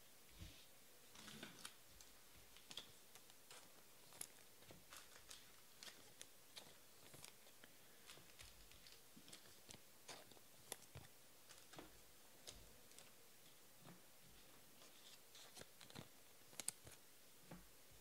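Near silence: quiet room tone with faint, irregular small clicks and ticks scattered throughout.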